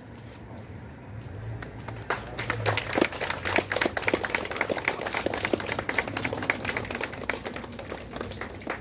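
Applause of many people clapping, starting about two seconds in and easing off near the end.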